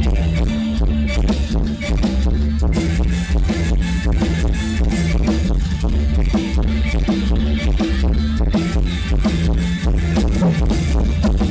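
Loud music with heavy bass and a fast, steady beat.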